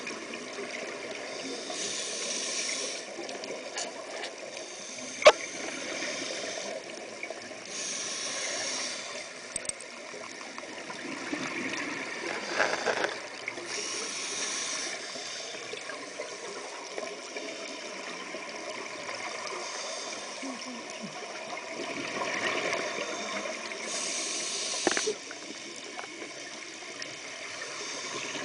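Scuba diver breathing through a regulator, heard through the camera's underwater housing: a steady watery hiss with a breath-and-bubble surge about every six seconds. A sharp knock about five seconds in.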